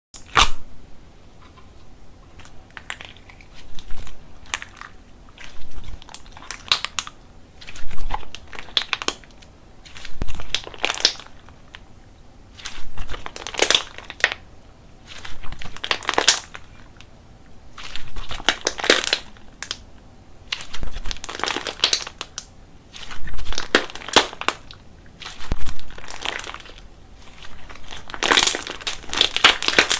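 Slime being squeezed and pressed by hand, making crinkly, crackling squishes in repeated bursts every second or two.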